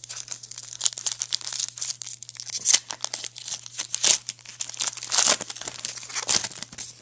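Trading card pack wrapper being torn open and crinkled by hand, a dense, irregular crackling with sharp ticks.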